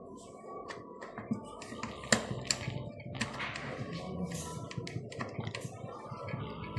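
Irregular light clicks and taps of small plastic parts being handled as a vacuum cleaner's hose brush head is taken apart for cleaning, with one sharper click about two seconds in.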